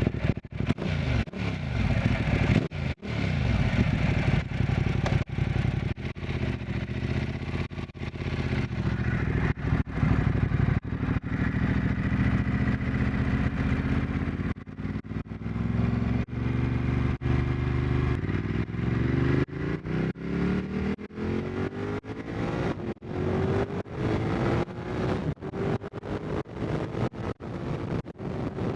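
Motorcycle engine, just started, running and then pulling away; from about twenty seconds in its pitch rises again and again as the bike accelerates.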